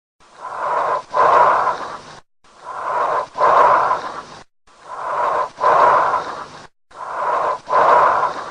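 Recorded lung sounds heard through a stethoscope: four even breaths about two seconds apart, each in two parts with a short break between, the second part louder.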